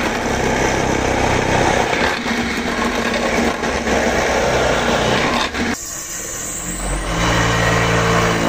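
Drill press boring into the wood of a box frame, a dense, loud grinding whir. It cuts off about six seconds in; a motor then spins up with a rising whine and settles into a steady hum.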